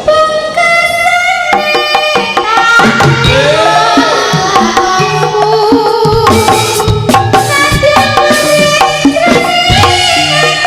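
Live Javanese jaranan (turonggo) dance music: drums beating a busy rhythm under a pitched melody that slides up and down.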